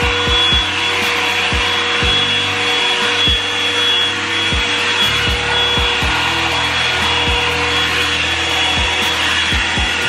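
Revlon One-Step hot air brush running as it is drawn through long hair: a steady rush of air from its fan motor with a thin whine. Irregular soft low thumps come about once a second.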